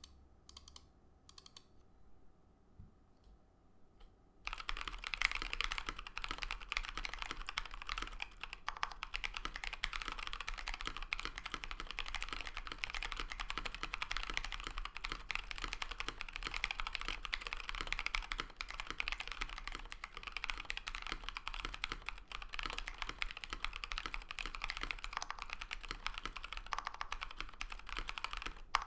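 Continuous fast typing on a KBDFans KBD67 Lite R2 mechanical keyboard with stock Pewter light tactile switches, a full polycarbonate plate and ePBT keycaps: a dense stream of key clacks. It starts about four seconds in, after a few scattered single clicks.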